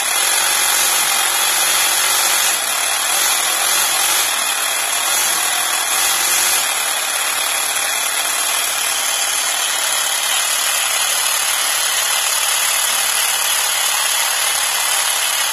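3D-printed scale model blown Hemi V8 running on its motor, its plastic pistons, belt drive and blower turning with a steady, high-pitched mechanical whir and rattle.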